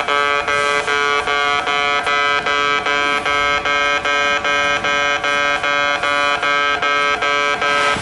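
Railway level crossing warning alarm, an electronic beeper rather than a clanging bell, sounding a loud buzzing beep repeated steadily about two and a half times a second: the crossing is closed for a train.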